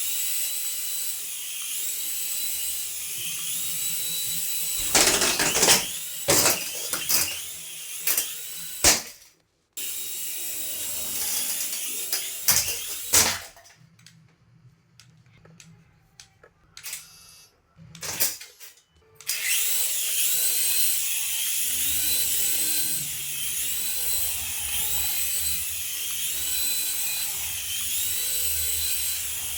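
Small electric motor of a battery-powered RC toy whirring with a high whine that dips in pitch at a regular pace. It is broken by sharp clicks and knocks, and it drops to near silence for a few seconds midway before starting up again.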